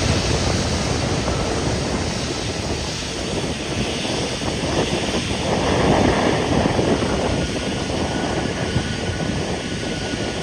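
Airbus A380 jet engines running at low taxi thrust as the airliner lines up on the runway. A steady jet noise that swells briefly about six seconds in.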